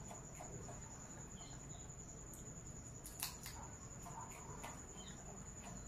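Quiet background with a steady high-pitched whine and a low rumble, broken by a few small clicks and crackles, the sharpest about three seconds in.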